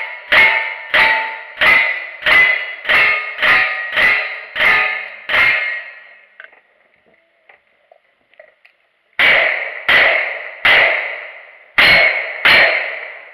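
Lever-action rifle fired in a quick string of about nine shots, then after a pause of about three seconds a revolver fires five shots.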